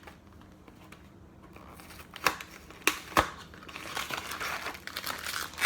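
Puff pastry packaging being handled and opened: a few sharp snaps about two seconds in, then continuous crinkling and rustling of the wrapper.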